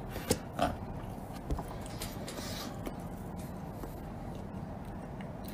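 Faint handling of a plastic cup and its lid: a few light clicks in the first second and a soft scrape about two seconds in, over a low steady room hum.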